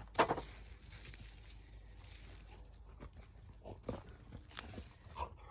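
A dog makes one short vocal sound just after the start, followed by faint scattered knocks and clicks.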